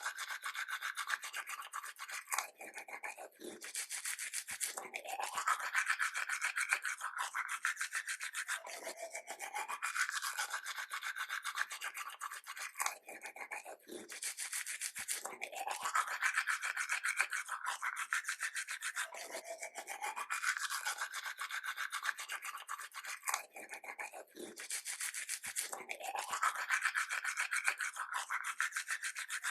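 Toothbrush scrubbing teeth in quick, continuous strokes. The pitch of the scrubbing rises and falls every few seconds, with brief pauses about 2.5, 14 and 24 seconds in.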